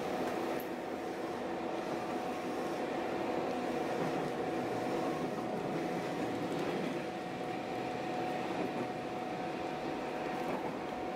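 Diesel railcar running along the line, heard from inside the passenger cabin: a steady engine and running drone with a constant whine over the rolling noise.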